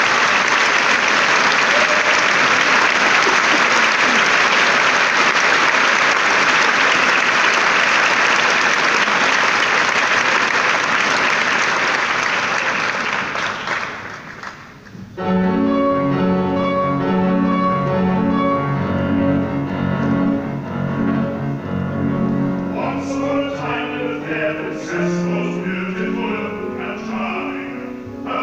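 Theatre audience applauding for about fourteen seconds, then dying away. A grand piano then starts a song introduction, and a bass-baritone voice begins singing over it about eight seconds later.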